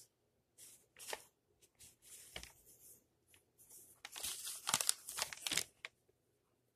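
Grocery packaging crinkling and rustling as items are handled, in short scattered bursts that grow busiest about four seconds in and stop near six seconds.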